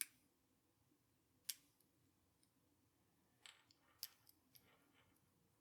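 Faint, sparse metallic clicks of a lock pick and tension bar working the pins of a Master Lock Magnum M930XDLH padlock. There are two single clicks, then a quick cluster of small clicks in the second half.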